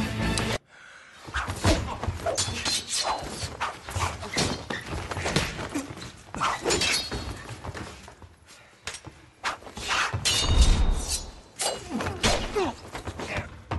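Film fight sound effects of a sword against a knife: a fast, irregular run of metal blade clashes that ring briefly, mixed with sharp hits, crashes and thuds. The loudest is a heavy thud a little past the middle. Background music cuts off abruptly about half a second in.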